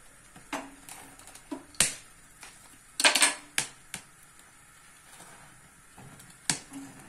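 Slit, oiled red chillies roasting directly over a gas flame, giving scattered sharp crackles and pops, with the loudest cluster about three seconds in.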